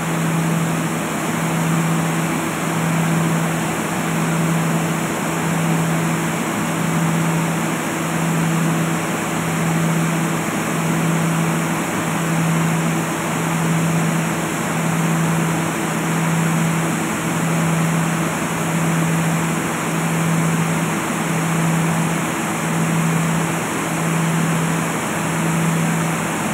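Seed cleaning and grading plant machinery running: a steady rushing noise with a low hum that swells and fades about once every second and a half.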